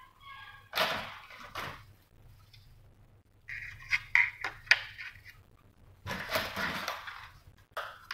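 Dry lasagne sheets rustling and clicking against a glass baking dish as they are laid in and pressed flat, in three short bouts with sharp clicks in the middle one.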